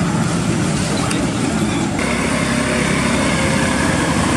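Steady, loud motor-vehicle noise: engine and road rumble, with a change in its sound about two seconds in.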